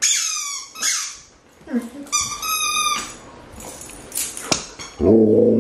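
Squeaky rubber chicken toy squeezed by a dog: two long, high squeaks, the first falling in pitch and the second held steady. Near the end there is a low, drawn-out moaning voice.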